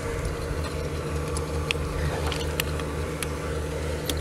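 A motor running steadily with a low, slightly pulsing hum, with a few short light metallic clicks.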